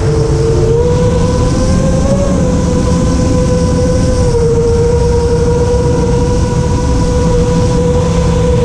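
A 5-inch FPV quadcopter's brushless motors and propellers whining at a steady throttle, the pitch drifting slightly up and down, over a heavy rumble of wind on the onboard microphone.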